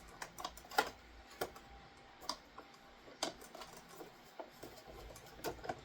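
Irregular sharp clicks and taps from a Nissan Murano center console lid latch being pushed and worked by hand, its button slider a little sticky; the loudest click comes about a second in.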